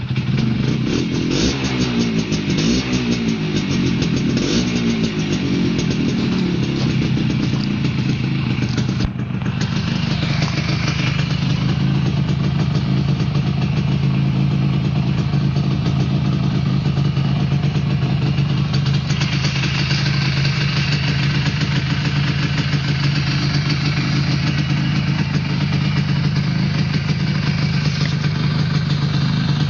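Suzuki GP100's single-cylinder two-stroke engine, freshly rebuilt, running just after starting. Its revs waver for the first several seconds and dip briefly about nine seconds in, then it settles to a steady idle.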